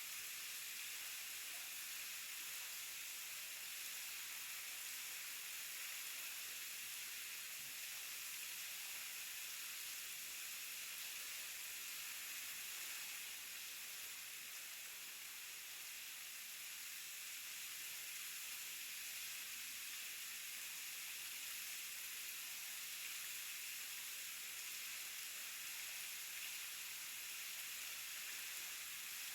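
Waterfall: falling water making a steady, even hiss, mostly high-pitched with little low rumble.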